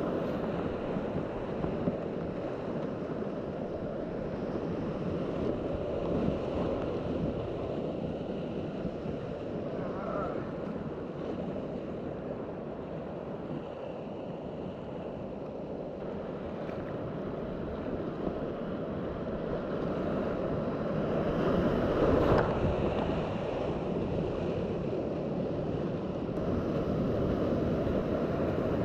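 Whitewater rapids rushing and splashing around a kayak on the Kananaskis River, running high on a 55 cms dam release. The rush is steady throughout and is loudest about two-thirds of the way through.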